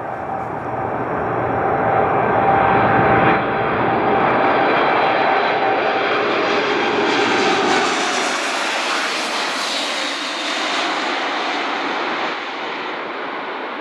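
Boeing 747-8 freighter's four GEnx turbofan engines on low final approach. Engine whine and rumble grow louder over the first few seconds, then turn into a higher-pitched rushing noise as the jet passes, easing off somewhat near the end.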